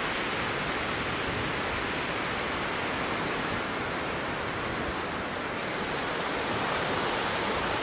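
Low surf washing in over a flat sand beach: a steady, even hiss of small breaking waves.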